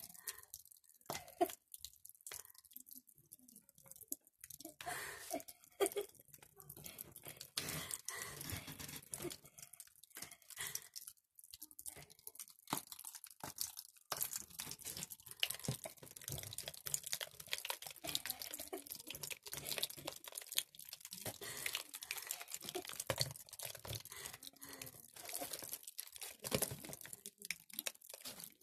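Irregular crackling and crunching of a glue-stiffened thread ball being handled as the deflated rubber balloon inside is peeled from the threads and pulled out.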